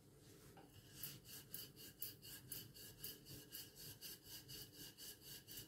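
Wooden rolling pin rolled back and forth over stuffed paratha dough on a wooden board: faint, rhythmic rubbing strokes, about two a second.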